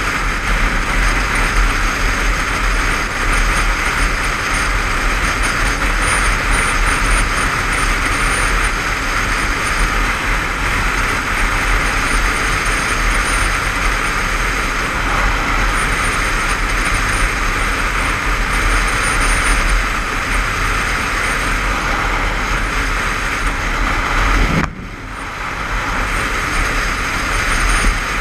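Motorcycle riding at dual-carriageway speed: steady wind rush on a helmet-mounted camera, with engine and road noise beneath. Near the end the rush drops off suddenly for about a second, then builds back.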